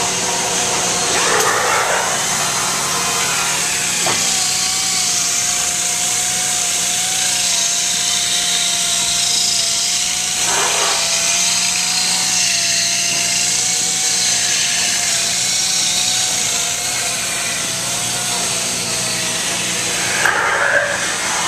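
Air-powered hand sander with a sanding drum, used on the edges of wooden swing slats, over the steady din of factory machinery. A click about four seconds in, then a wavering whine that runs until near the end.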